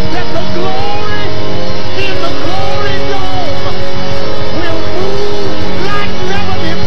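Live gospel worship music, loud: singing voices over steady held chords.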